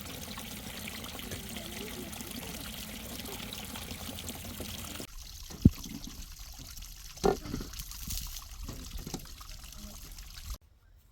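Water pouring and trickling steadily for about five seconds. After it stops abruptly, a few sharp knocks and clatters follow, the loudest a single hard knock.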